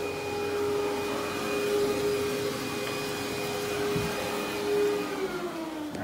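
Kirby G4 upright vacuum running on carpet with a steady motor whine. About five seconds in it is switched off and the motor winds down, its pitch falling.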